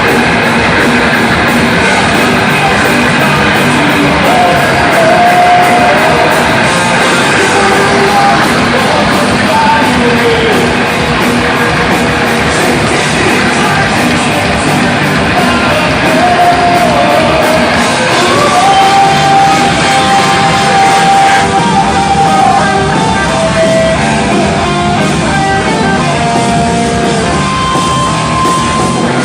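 Rock band playing loudly live, with a singer's shouted vocals over the instruments.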